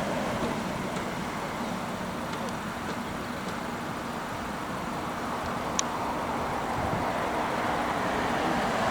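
Steady rushing vehicle noise with a faint low hum, growing a little louder towards the end, and one short tick about six seconds in.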